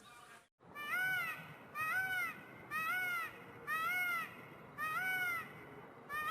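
An animal calling six times in a steady series, about once a second, each call short and clear, rising then falling in pitch, after a brief cut to silence near the start.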